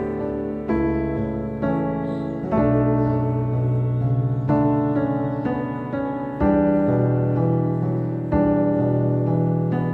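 Slow background piano music: chords struck about every one to two seconds, each left to ring and fade.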